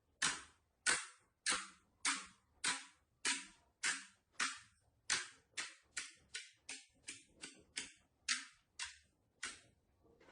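Slime being pressed, its trapped air pockets giving a series of about nineteen sharp pops, roughly every half-second, quickening in the middle and slowing again near the end.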